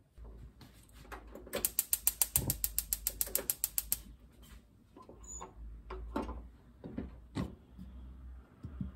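Gas hob's spark igniter clicking rapidly, about eight clicks a second for some two seconds, as the burner is lit under a pot of water, followed by a few knocks of the pot's lid and handle being handled.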